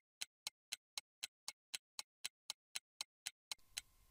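Clock-ticking sound effect, about four sharp ticks a second, stopping near the end.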